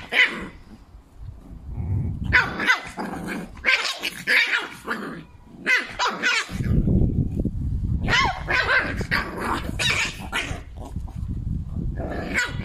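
A puppy and an adult dog play-fighting, with repeated short, high yapping barks and growling. A steady low growl runs through the second half.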